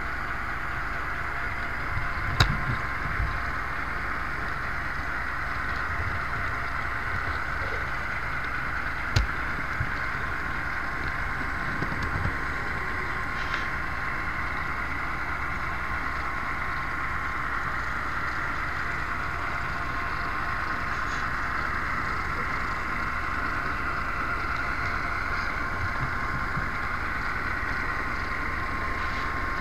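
Model train running steadily along the layout, heard close up from a camera riding on it: a constant whirring hiss from the motor, gears and wheels, with a few sharp clicks, the loudest about two and nine seconds in, as the wheels pass over track joints.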